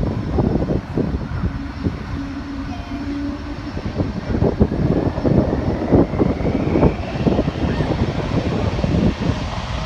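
Jet airliner passing close by: its engines make a deep, crackling rumble, with a faint whine that slowly rises in pitch partway through.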